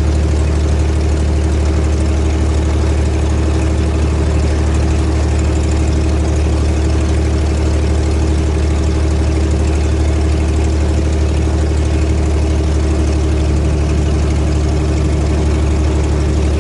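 Helio Courier's Lycoming GO-480 geared six-cylinder engine and propeller running steadily at low power, heard inside the cockpit as a loud, even drone.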